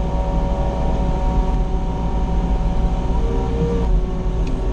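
Mini excavator's diesel engine running steadily, heard from inside the cab: a deep rumble with a steady whine over it, and a short extra whine a little after three seconds in.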